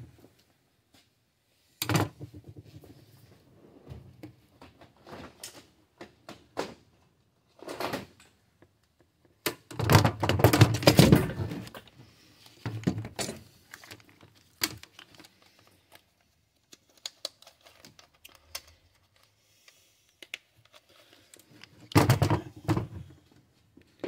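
Handling noise: scattered clicks and knocks of a plastic throttle-handle housing, wires and multimeter test leads being worked by hand. There is a louder stretch of rubbing and knocking about ten to twelve seconds in and another short burst near the end.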